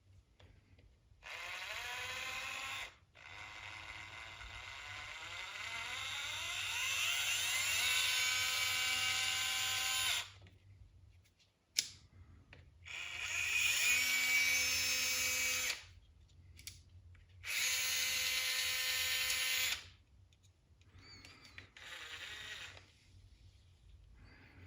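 Bosch IXO 6 3.6 V cordless screwdriver motor whining in four separate runs, the longest about seven seconds, with its pitch rising at first and then holding steady. A sharp click comes near the middle, and a faint short run comes near the end.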